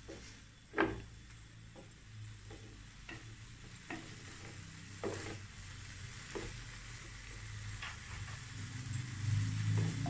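Shrimp, shredded cabbage and carrot sizzling in a nonstick pan while being stir-fried with a wooden spatula, with irregular sharp taps and scrapes of the spatula against the pan, the loudest about a second in.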